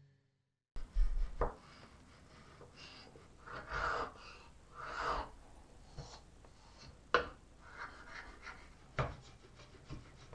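A bench chisel scraping a plywood block by hand: two short scraping strokes a few seconds in. Three sharp knocks of wood or tools set down on the workbench are spread through the rest.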